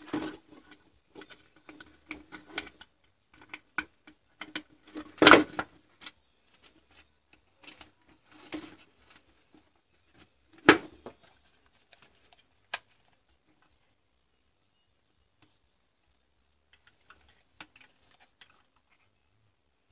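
Hands handling a plastic drill battery-pack housing with Li-ion cells and wires inside: irregular small clicks, taps and rustles, with two sharp louder knocks about five and eleven seconds in. The handling stops for a few seconds, then faint clicks return near the end.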